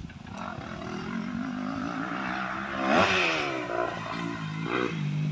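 Motocross dirt bike engine revving as the bike rides past, loudest about three seconds in, with the pitch dropping after the peak and climbing again briefly near the end.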